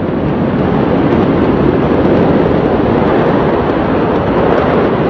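Steady, loud rushing noise with a few faint scattered crackles.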